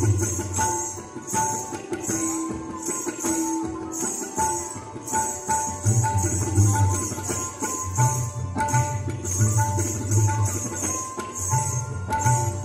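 Indian-style dance music with drum strokes, a short melodic phrase repeated over and over, and a jingling, shaker-like rhythm on top.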